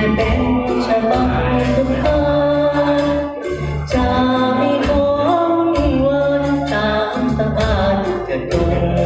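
A man singing into a handheld microphone through a PA system, over amplified backing music with long held chords.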